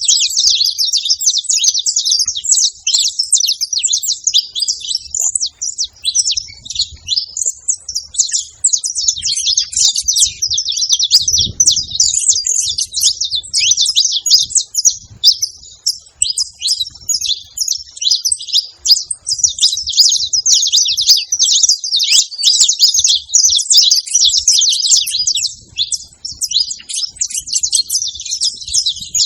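A group of saffron finches chirping and calling all at once, a dense, unbroken chatter of many overlapping high notes.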